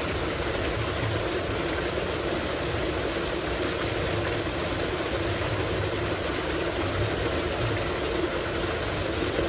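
Tubewell outflow: water gushing from a large pipe into a concrete tank, a steady rushing splash with a low rumble under it.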